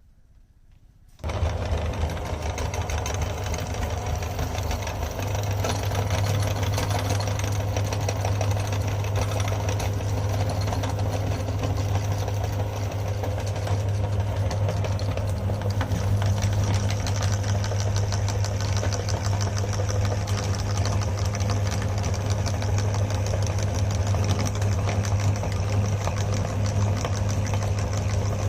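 Electric meat grinder switched on about a second in, then running steadily with a strong motor hum and a continuous crackle from the grinding.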